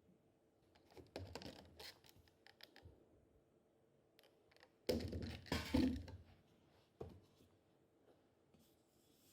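Scraping, rustling and clicking as objects are handled, in two short bursts, the second the loudest, with a single knock a little later.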